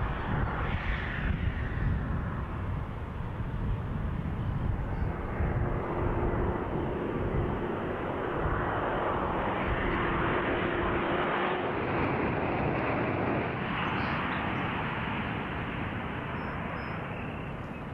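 Jet airliner on approach: a steady rush of turbofan engine noise, with a faint steady hum joining in for several seconds midway and the sound easing slightly near the end.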